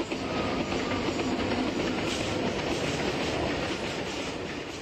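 Model train of an electric locomotive and coaches rolling along the layout's track, wheels clattering over the rail joints with a steady rolling rumble. It begins to fade near the end as the train moves away.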